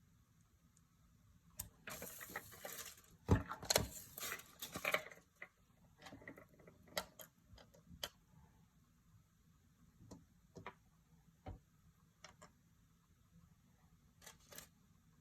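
Hands handling surprise-egg packaging and small plastic toy parts: a few seconds of crinkling and rustling about two seconds in, then scattered light clicks and taps.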